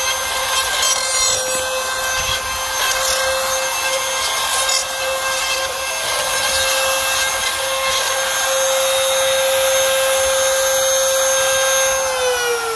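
Drillmaster trim router running at a steady high pitch as its bit cuts along the slot of a 2040 aluminium extrusion, turning the T-slot into a V-slot, with a scraping rub of the cut. Near the end it is switched off and its whine falls as the motor winds down.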